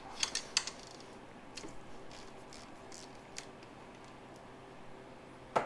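Scattered light clicks and taps of small metal parts and hand tools being handled at an engine, with one sharper click near the end.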